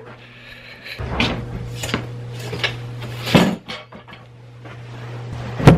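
Footsteps and the knocks and clatter of a cardboard box and other objects being carried and moved about, a knock every second or so, with a sharp bang near the end. A steady low hum runs underneath.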